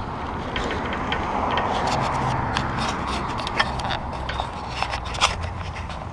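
Wind and rolling noise on an action camera riding along on a bicycle, a steady rush that swells and fades, with many short clicks and rattles from the bike going over bumps.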